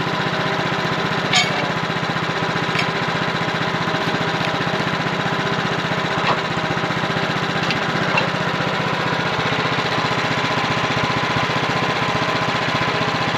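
Portable band sawmill's engine running steadily, with a few light knocks and clicks, about five of them, in the first two-thirds.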